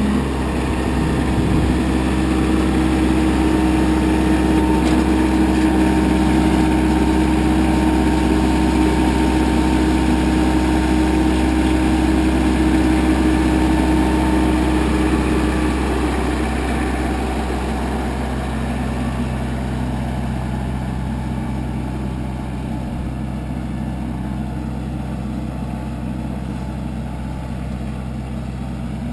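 New Holland Boomer 35 compact tractor's diesel engine running steadily. After about sixteen seconds it grows gradually quieter as the tractor pulls away.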